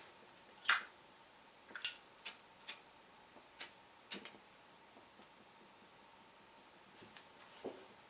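Zippo windproof lighters being handled: a series of sharp metallic clicks, about seven in the first four and a half seconds, one with a brief high ring, then a few soft taps near the end.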